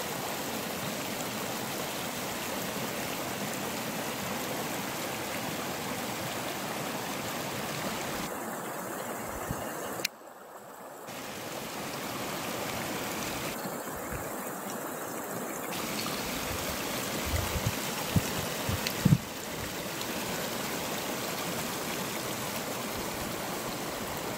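Glacial meltwater stream running over ice, a steady rushing that dips for about a second roughly ten seconds in, with a few soft thumps in the second half.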